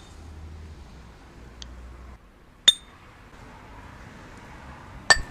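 Two sharp metallic clinks with a brief ring, one near the middle and one near the end: steel gears from a three-wheeler's dismantled gearbox being handled and knocked against metal.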